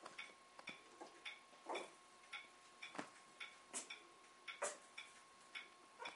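A clock ticking faintly and evenly, about two ticks a second, over a faint steady whine. A few louder soft rustles and scuffles from puppies playing with toys on the carpet come in between, the loudest near the middle.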